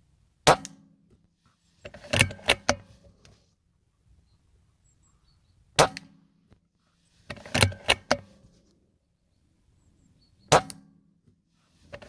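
Three rifle shots about five seconds apart, each a single sharp crack, followed about a second and a half later by a quick run of several metallic clicks as the action is worked to reload.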